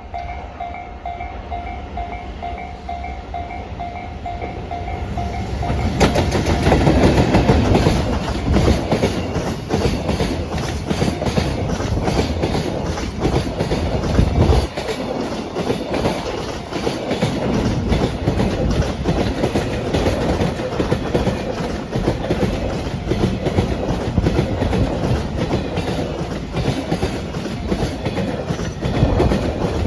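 A Japanese level-crossing warning bell rings in rapid even pulses. About six seconds in, a JR Freight EF210 electric locomotive suddenly arrives close by, followed by a long train of Koki container flatcars, their wheels knocking steadily over the rail joints.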